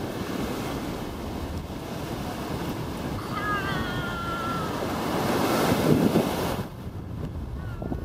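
Surf washing up on the shore, with wind buffeting the microphone. The wash swells about five to six seconds in, then drops off suddenly.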